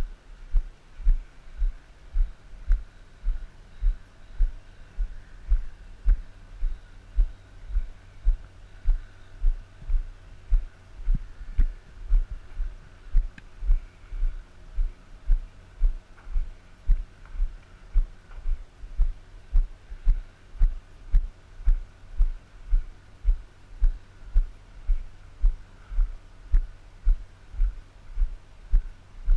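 Footsteps of someone walking along a gravel path, heard as dull low thumps in a steady walking rhythm of about two a second.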